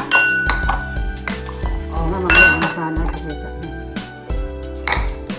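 Dishware clinking on a stone countertop: three sharp clinks, the first two ringing on briefly, over background music.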